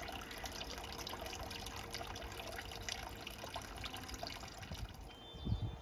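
Steady trickling, splashing water full of small crackles, thinning out about five seconds in, followed by a dull low thump near the end.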